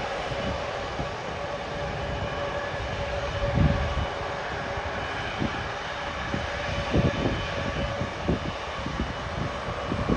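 Jet airliner engines at takeoff power: a steady noise with a faint steady whine, and wind buffeting the microphone in low gusts throughout.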